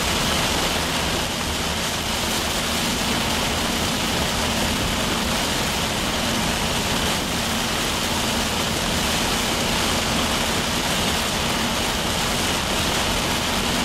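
Steady rushing noise of heavy rain on a vehicle, with road and engine noise underneath, unchanging throughout.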